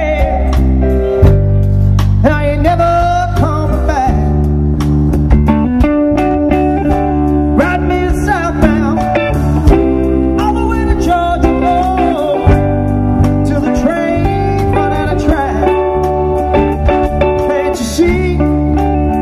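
Live rock band playing: electric guitar and bass over drums, with a man singing.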